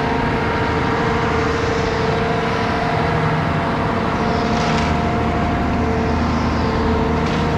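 Concrete mixer truck's engine running steadily, a continuous low rumble with a steady whine over it.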